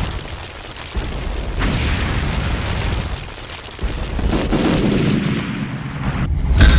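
Deep rumbling booms like thunder over a rushing hiss, swelling suddenly several times, with a sharp loud hit near the end.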